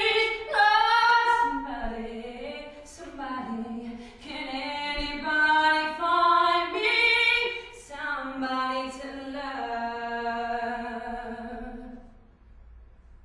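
A woman singing solo and unaccompanied, in several phrases with long held notes; the singing stops about a second before the end.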